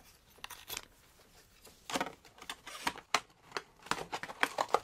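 Hands turning and handling a Casio G-Shock watch close to the microphone: an irregular string of small clicks, taps and rustles, sparse at first and much busier from about two seconds in.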